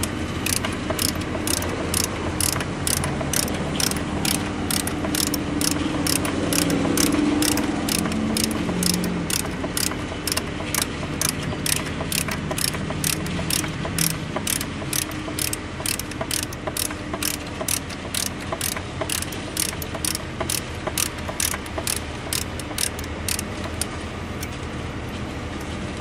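Hand ratchet wrench clicking in a steady rhythm, about two to three clicks a second, as it backs off a stern drive's factory mounting nut; the clicking stops near the end.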